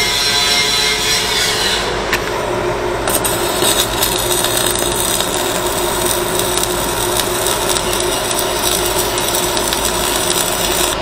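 Electric arc welding on structural steel: the arc crackles and spits steadily, starting about three seconds in.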